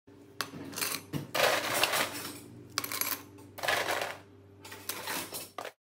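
Ice cubes dropping into a tall drinking glass, clinking against the glass and each other in about six quick bursts. It cuts off suddenly just before the end.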